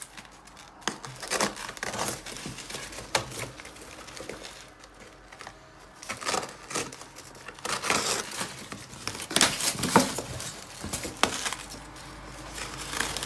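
Cardboard box and white foam packing being handled and pulled apart by hand: irregular rustling, crinkling and scraping, with a few sharper scrapes, the loudest about ten seconds in.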